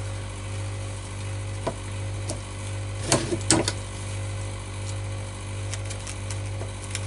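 Small clicks and knocks of a scalpel and hands working at a pheasant carcass, with a short cluster of louder handling knocks about three seconds in, over a steady low hum.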